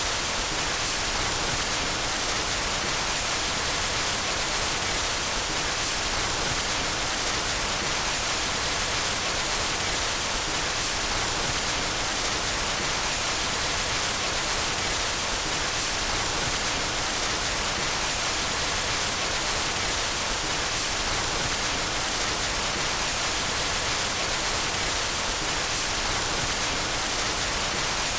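Steady white noise: an even hiss with no change in level or pitch.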